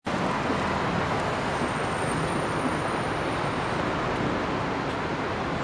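Steady noise of busy city traffic, cars and buses running on a wide multi-lane avenue.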